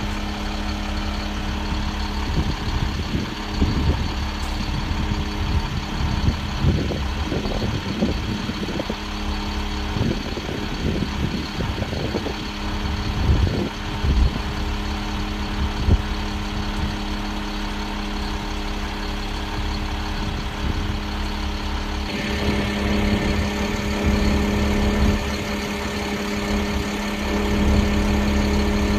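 Diesel engine on a sewer jetter truck idling steadily. About 22 seconds in the sound grows a little louder and brighter.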